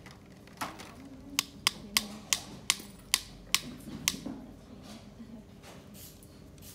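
A run of about seven sharp metallic clicks over two seconds as pliers grip and work on the metal head of a contra-angle dental handpiece.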